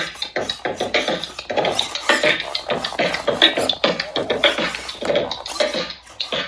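Loona petbot robot dog beatboxing through its built-in speaker: a fast, unbroken run of beatbox drum sounds, several a second.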